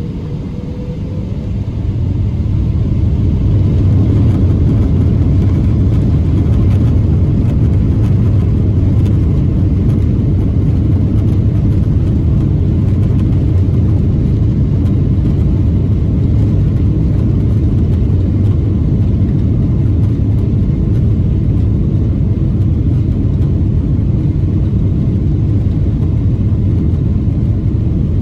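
Boeing 777-200ER engines heard from inside the rear economy cabin, spooling up for takeoff: a faint rising whine at the start and loudness building over the first few seconds, then a loud steady rumble of the takeoff roll and climb.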